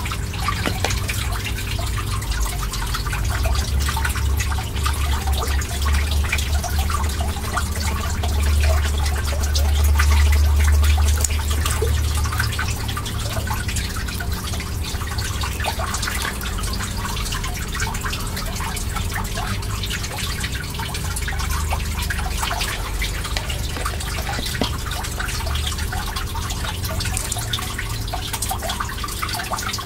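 Water trickling and dripping steadily, with a low hum and rumble underneath that swells for a while in the first half.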